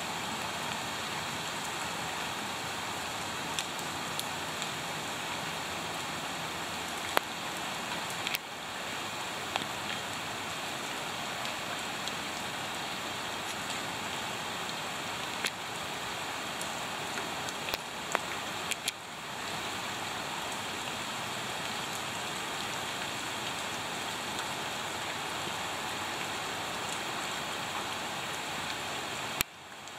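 Steady rain falling into a shallow puddle, raising bubbles and rings on the water, with a few sharp ticks of single drops standing out.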